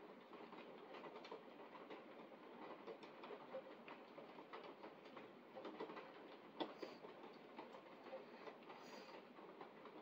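Faint, steady rain, with a dense patter of drops ticking against the window glass.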